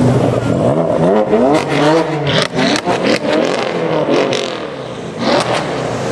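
Tuned Mercedes-AMG CLS 63 (C218) twin-turbo V8 with a Fi valved exhaust accelerating hard, its pitch sweeping up several times as it revs through the gears. A run of sharp exhaust cracks comes during the second and third seconds, with a few more about five seconds in.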